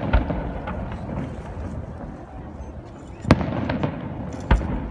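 Fireworks shells bursting: a sharp bang right at the start, another about three seconds in followed by a few smaller cracks, and a third near the end, over a crowd murmur.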